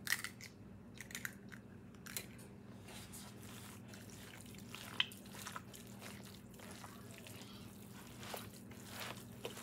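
Hands cracking eggs into moist cornbread dressing and squishing the mixture together in a foil pan: faint crunching and squelching with a few sharp clicks, the sharpest right at the start and about five seconds in.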